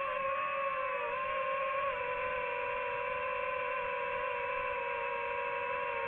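DJI FPV drone's motors and propellers giving a steady whine close to the airframe, dipping slightly in pitch about a second in.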